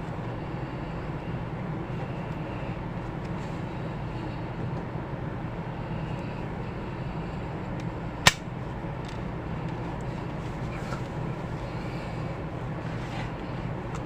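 Steady low background rumble with one sharp click a little past the middle.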